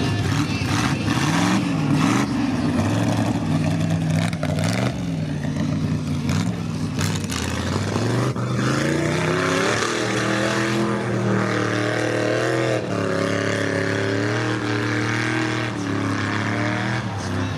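Lifted mud-bog truck's engine revving in short swells, then climbing to high revs about halfway through and held there with a wavering pitch as it churns through the mud pit, with a hiss of spray over it.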